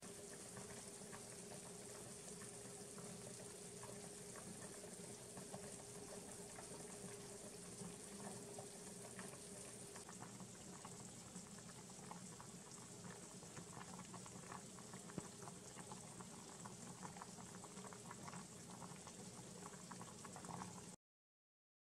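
Sausage rounds frying in oil in a pan, a faint sizzle with many small crackles and pops over a steady low hum. It cuts off suddenly near the end.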